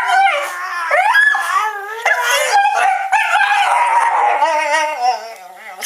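Pet dog howling and whining in a long run of rising and falling yowls, with a wavering howl near the end: a dog's noisy wake-up call.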